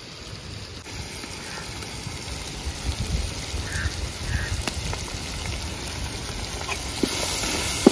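Chicken pieces and ground spices frying in an open aluminium pot over a wood fire: a steady sizzle that grows louder, with a low rumble underneath and a few faint clicks.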